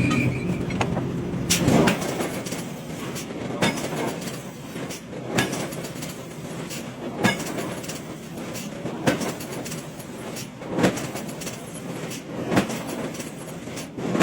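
Heavy power forging hammer striking steel in a steady rhythm, one sharp blow about every two seconds, over a continuous machine and shop noise.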